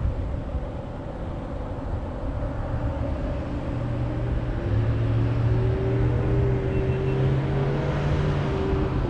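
A motor vehicle's engine runs over road noise. About four seconds in, its note rises slightly in pitch and grows louder as the vehicle speeds up or draws near.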